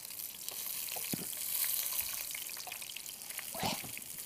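Breaded fish fillet shallow-frying in hot oil in a pan: a steady sizzle that swells about a second and a half in, with a couple of brief knocks from a metal spoon in the pan.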